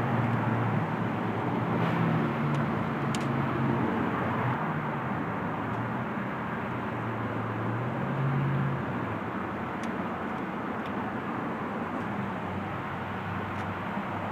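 Steady low rumble of a motor vehicle running, with a hum that swells about eight seconds in, and a few faint clicks.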